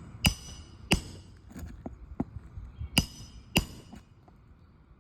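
Hammer driving roofing nails into an asphalt shingle, with sharp, ringing metallic strikes: two about a second apart, a few lighter taps, then two more near the three-second mark.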